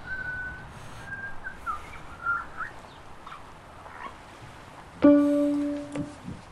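Sparse experimental soundtrack: a few short, high, gliding chirp-like tones over a low hiss. About five seconds in, a sudden loud held note comes in and fades away over about a second.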